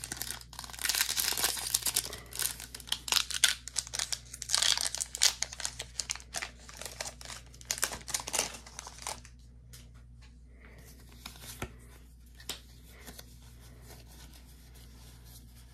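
A Pokémon TCG booster pack's foil wrapper is torn open and crinkled by hand, a dense crackling that goes on for about nine seconds. Then it goes much quieter, with a few soft clicks as the cards are handled.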